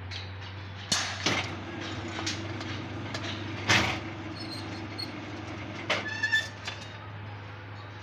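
Electric rebar bending machine running with a steady low hum; its bending disc drones for a few seconds while a bundle of steel bars is bent into stirrups. Steel bars clank several times, loudest about four seconds in, with a brief high squeal around six seconds.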